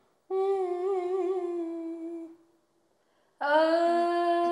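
A woman's voice singing long wordless held notes with no accompaniment: a first note of about two seconds that wavers in pitch, a pause of about a second, then a second held note starting near the end.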